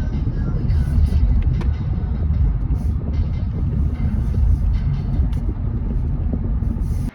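Car road and engine noise heard from inside the cabin while driving: a steady low rumble with a few light clicks, cut off suddenly at the end.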